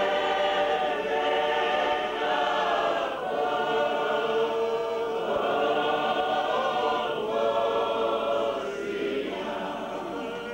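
Church choir singing, many voices together in phrases a few seconds long, dying down near the end.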